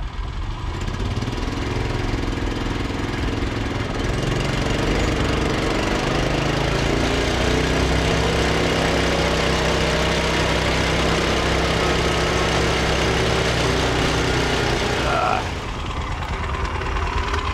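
2017 Rokon Ranger two-wheel-drive motorcycle's small single-cylinder engine running steadily under way, easing off about three-quarters of the way through as the bike slows.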